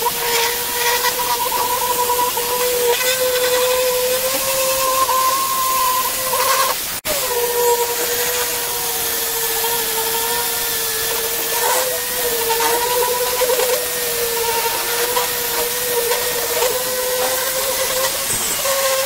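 Angle grinder running at a steady whine, its abrasive disc grinding rust and pitting off a steel cleaver blade with a hissing scrape of metal on the disc. The sound drops out for an instant about seven seconds in.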